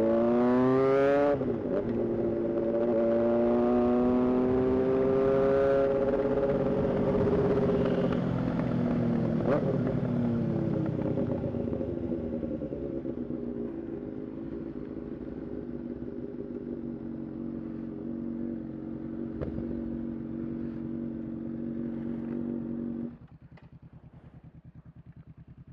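Honda CBR600 motorcycle's inline-four engine accelerating hard, shifting up about a second in and pulling up through the revs again, then easing off and running at a steady pitch. Near the end the engine sound drops suddenly to a faint, low steady run.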